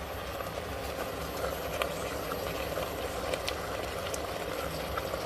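Mutton pieces frying in masala in an open aluminium pressure cooker on an induction hob: a steady sizzle with scattered small crackles, the meat well browned and starting to smoke.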